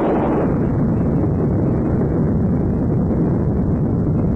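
Loud, steady rumble of a nuclear explosion with no breaks, heavy in the low range, its brightness dulling slightly over the first second.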